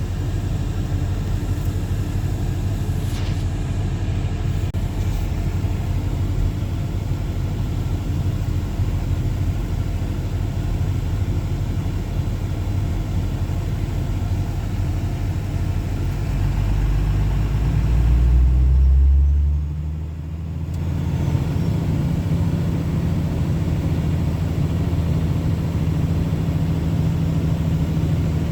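Dodge vehicle driving, heard from inside the cabin: a steady engine and road rumble. About 17 s in the low engine note swells as it pulls harder, drops away sharply around 20 s, then settles into a steady low hum.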